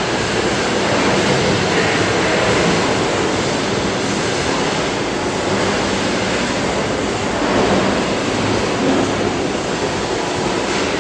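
Manual metal lathe running through an eccentric turning job, a loud, steady mechanical rush of noise with a faint low hum underneath.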